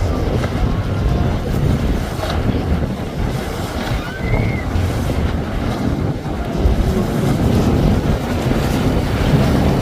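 Wind buffeting the microphone over surf and the running of an Intrepid center-console boat's outboard motors as it crosses choppy inlet water, its hull throwing spray. The wind rumble is the loudest part and masks any clear engine note.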